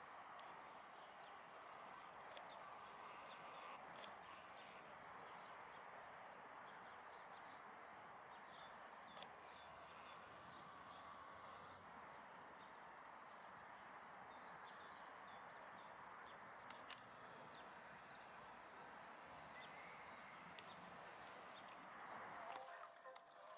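Near silence: faint, steady outdoor ambience with scattered small ticks.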